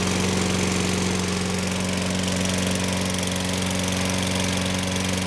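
Toro Personal Pace lawn mower's Tecumseh 6.5 hp engine running steadily, the sign of a good-running engine after its carburetor was cleaned.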